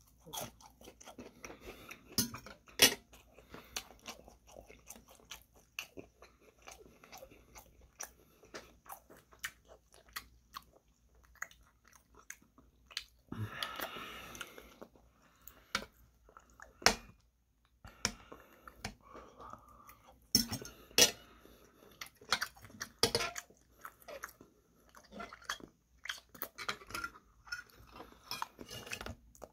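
Close-up chewing of breaded, fried chicken katsu, with many short, sharp crunches of the crisp coating and now and then the clink of a metal fork on the plate.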